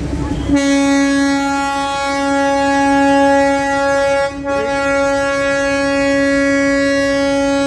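Horn of a Darjeeling Himalayan Railway diesel locomotive sounding one long, steady blast. It starts suddenly about half a second in and falters for a moment about four seconds in.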